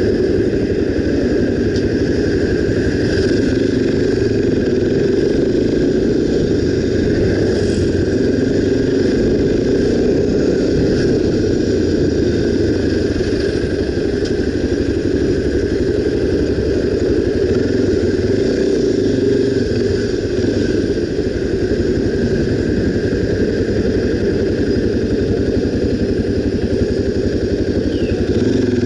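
Honda XR 250 Tornado motorcycle's single-cylinder four-stroke engine running steadily while riding, with no marked revving.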